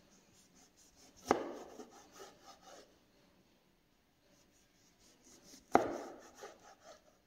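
Kitchen knife slicing a tomato on a cutting board: two sharp knocks of the blade on the board about four seconds apart, each followed by a short run of fainter cutting ticks.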